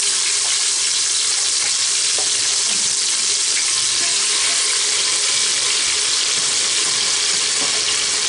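Marinated mutton sizzling steadily in hot oil and cumin in an aluminium pressure cooker, with a spatula now and then knocking and scraping as the pieces are turned.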